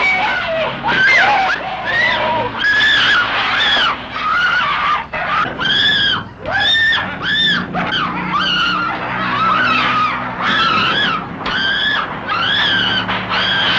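A woman screaming over and over in short, high shrieks, a horror-film soundtrack scream. A low steady hum runs beneath them from about eight seconds in.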